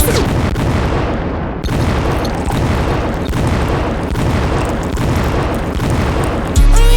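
A noisy break in a hip-hop track: the beat drops out and a loud, dense rumbling and booming noise with quick falling sweeps fills the gap, until the beat comes back in near the end.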